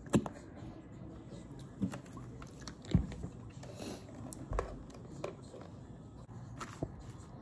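Quiet mealtime handling sounds: a squeeze bottle of ranch dressing squeezed over a salad, then a few light knocks and clicks on the countertop, the sharpest about three seconds in, with some chewing.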